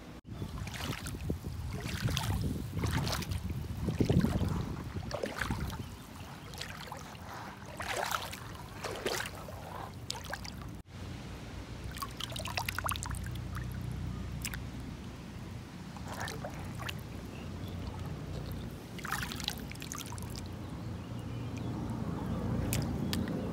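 Shallow lake water sloshing and splashing against a pebbly shore as a hand stirs it and lifts out stones, with irregular splashes over a low rumble of wind on the microphone.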